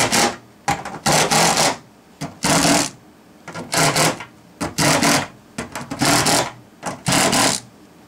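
Ratchet wrench with a socket on an extension tightening the nuts of a fuel pump access cover: short runs of rapid clicking, about one a second, seven times.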